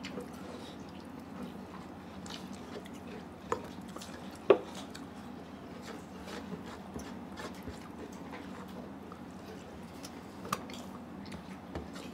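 Eating by hand from a metal plate: fingers mixing and squishing food against the plate, with chewing and scattered small clicks. One sharper, louder knock about four and a half seconds in.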